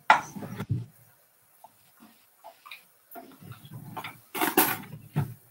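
Handheld spice mill being twisted over a frying pan: quick bursts of gritty, ticking grinding, one spell in the first second and another from about three seconds in.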